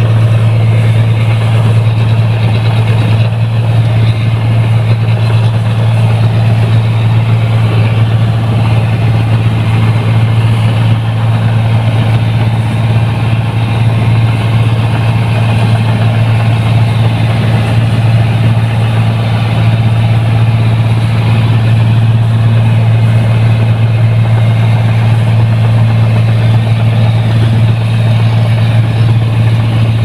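New Holland 1545 combine harvester's diesel engine running steadily as the machine travels along a road: a loud, constant low drone that stays even throughout.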